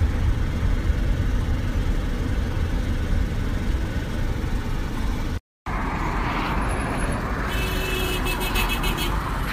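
Car driving: steady engine and road rumble, broken once a little past halfway by a brief moment of silence, after which the noise is brighter and hissier.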